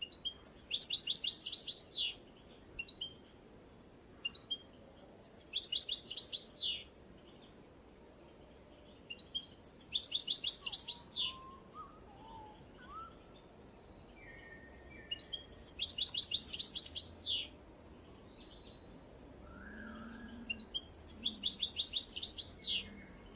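A small songbird singing the same short song five times, about every five seconds: a few brief notes, then a quick run of high downward-sweeping notes. Fainter calls from other birds come in between.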